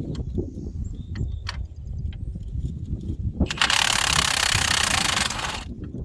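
A few light metal clicks, then an impact wrench running in one burst of about two seconds, starting about three and a half seconds in, as it works a rusted bolt on the disc tiller.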